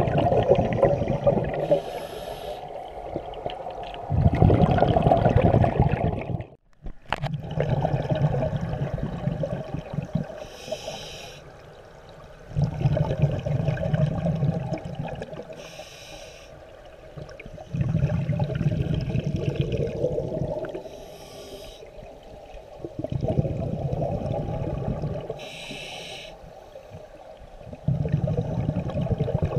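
Scuba diver breathing underwater through a regulator: a short hiss on each inhale, then a longer rush of exhaled bubbles, repeating about every five seconds.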